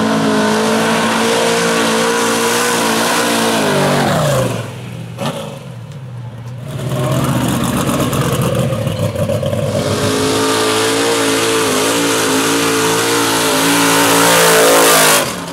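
Off-road vehicle engine at full throttle on a mud drag run, held at high revs. The revs drop about four seconds in, then build back up and hold high until the sound stops abruptly near the end.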